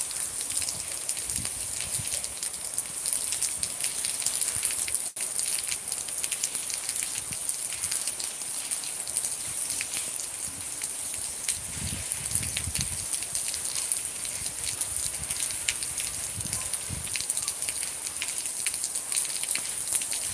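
Rain falling steadily: a dense hiss full of small, crackling drop ticks, with a few dull low bumps around the middle.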